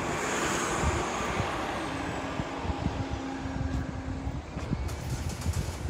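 Outdoor background noise: a steady low rumble with irregular buffeting, a faint steady hum in the middle and a few light ticks near the end.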